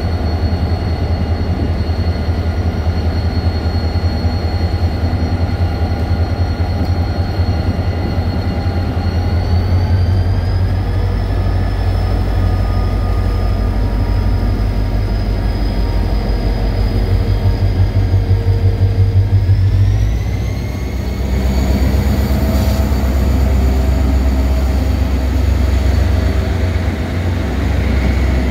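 Korail diesel-electric locomotive pulling a passenger train away from a station: a steady heavy engine rumble, with a high whine that steps up in pitch twice as it gains speed, about ten and twenty seconds in. Toward the end the coaches roll past.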